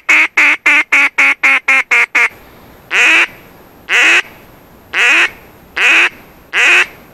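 Hunter's mouth-blown duck call sounding close and loud: a fast run of about a dozen short quacks that quickens over the first two seconds, then five single drawn-out quacks about a second apart. It is calling to ducks circling high overhead, trying to bring them down to the decoys.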